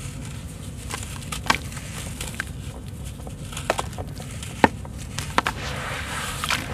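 Lumps of wet sand-cement crumbling and crunching in the hands over a basin of water: scattered sharp cracks, the loudest about two-thirds of the way through, with water sloshing as the pieces are dipped toward the end. A steady low rumble sits underneath.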